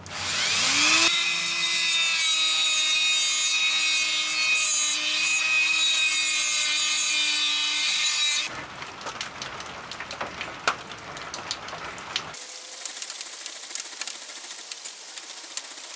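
A handheld rotary tool with a small cut-off disc whines up to speed in the first second, then runs steadily at a high pitch until about eight seconds in. After that come scattered clicks and handling, then a dry, high scratching as a small abrasive stone is rubbed by hand in a groove on the steel handle.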